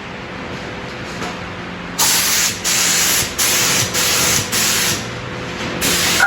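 Compressed air hissing out in repeated short bursts, about five in a row starting two seconds in, over a fainter steady hiss.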